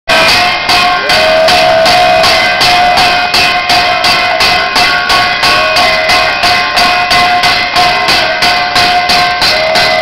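Temple bells struck in a fast, even rhythm, about three strokes a second, each ringing on into the next.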